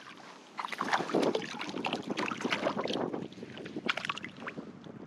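Water splashing and sloshing in the shallows, a dense run of irregular splashes that starts about half a second in and eases off near the end.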